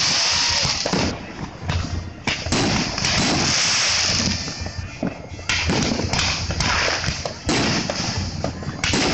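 Fireworks going off: a dense run of bangs and crackling over a loud hiss, coming in waves with short quieter spells between them.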